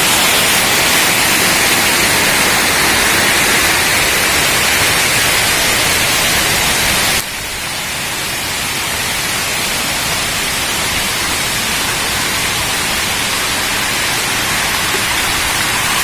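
Steady loud hiss of a fast stream rushing down a stepped channel. About seven seconds in it drops abruptly to a lower, duller level and carries on.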